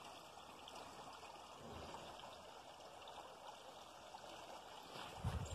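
Faint, steady trickle of running water, with a short low thump near the end.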